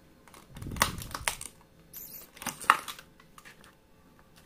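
Utility knife blade cutting and prying at a stiff clear plastic blister pack, giving a run of sharp clicks and plastic crackles over the first three seconds, then quieter handling.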